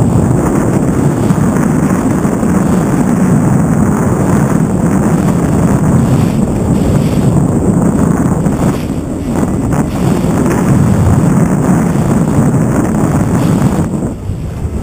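Heavy wind buffeting the microphone on an open boat at sea: a dense, gusting low rumble that eases a little near the end.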